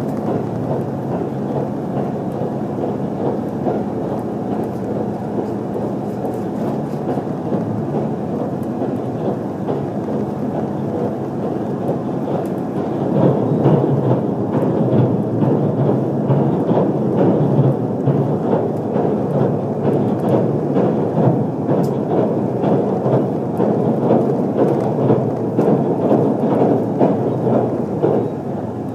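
Running noise of an HC85 hybrid express train heard inside the passenger cabin: a steady low rumble of wheels on rail and the underfloor drive. It grows louder about halfway through and drops back slightly near the end.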